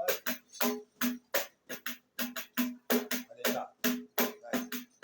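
Tamborim struck with a stick, playing a syncopated partido alto pattern: sharp, ringing strikes about four a second in uneven groups with short gaps.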